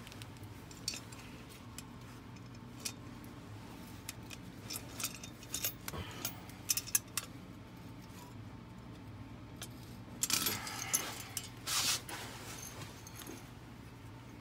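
Light metallic clinks and rattles as a steel Duke #3 coil-spring foothold trap is handled and its pan ear worked with a crescent wrench, with two louder bursts of rattling near the end.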